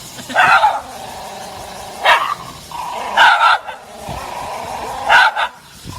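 A dog barking about four times in short separate barks, with pauses of a second or more between them.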